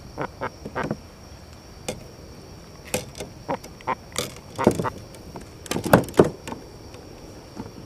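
A sea robin croaking in the hand in short, irregular grunts while it is being unhooked, mixed with handling knocks. The loudest croaks come about five to six seconds in.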